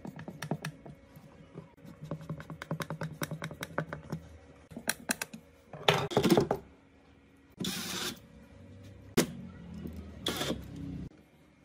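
Screws being driven into a chipboard speaker cabinet: first a run of quick light clicks as a screw is turned in with a hand screwdriver, then several short bursts from a cordless impact driver, the last one ending abruptly.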